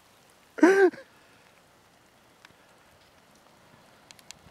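One short, loud cry about half a second in, then light rain pattering faintly.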